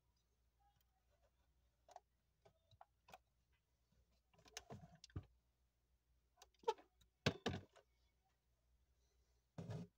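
Faint, scattered clicks and knocks from a hand handling a 1:18 scale Audi A6L model car: the hood being pressed shut and the model being shifted on the mat. The louder knocks come in small clusters, with a short rustle near the end.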